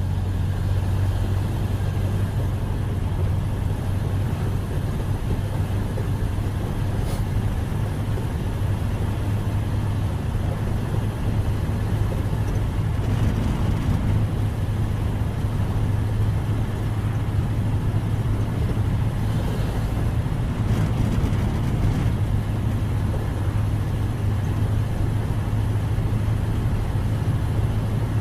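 1931 Ford Model A's four-cylinder flathead engine running steadily as the car is driven, a low, even drone with no revving.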